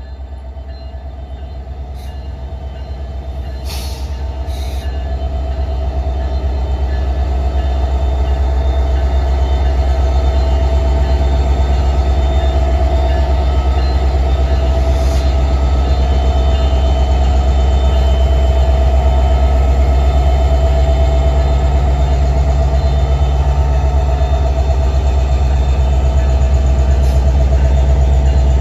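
Diesel freight locomotive running as it works a train through the yard, its deep engine rumble growing louder over the first several seconds and then holding steady. A few short clicks are heard, at about two, four and fifteen seconds in.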